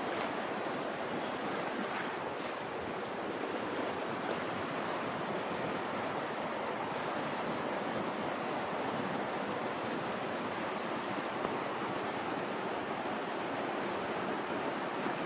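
Steady rushing of the Yarra River in flood, a swollen, fast-moving body of brown floodwater running over its banks.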